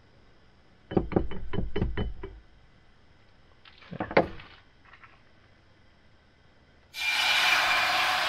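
A fork beats an egg in a blue enamel bowl, with about six quick knocks about a second in and two more near four seconds. About seven seconds in, a loud, steady sizzle starts as the beaten egg hits the hot cast iron frying pan.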